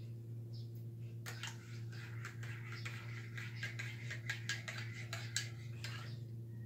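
Metal teaspoon clinking and ticking against a ceramic mug as coffee is stirred: a quick run of light ticks starting about a second in and stopping near the end, over a steady low hum.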